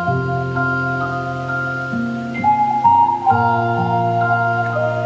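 Slow background music of long held keyboard-like notes over a sustained bass, the notes changing every second or so, with no beat.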